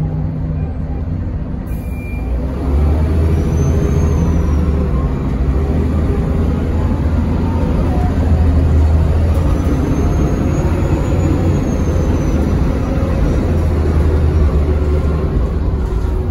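Mercedes-Benz O405NH bus heard from inside the cabin, its horizontal six-cylinder turbo-diesel idling, then pulling away about two and a half seconds in and running under load as the bus moves off. A faint high whine rises and falls twice.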